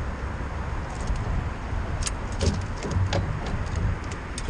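Steady low rumble with scattered sharp knocks and clicks, the noise of a fishing boat on the water.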